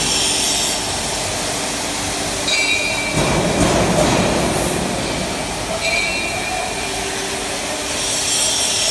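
Abrasive blast cabinet in operation: a steady, loud rushing hiss of the blast stream working on a casting inside the cabinet. It gets louder for a couple of seconds in the middle, with thin high whistling tones coming and going.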